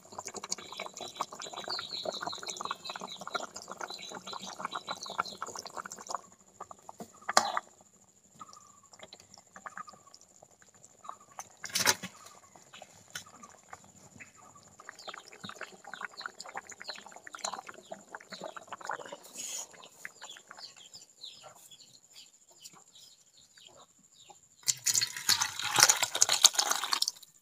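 Fish curry bubbling and crackling in a karahi on a clay stove, with a couple of sharp knocks against the pan. Near the end comes a loud splashing rush as the curry is poured into a bowl.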